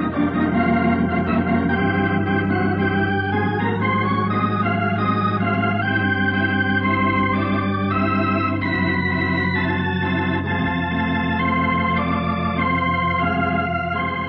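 Organ music bridge marking a scene change in the radio drama: a slow melody of held notes and chords over a steady low bass, beginning to fade near the end.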